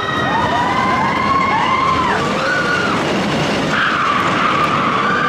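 Roller coaster riders screaming and whooping, several voices with rising and falling cries, over a steady rush of the moving train and wind.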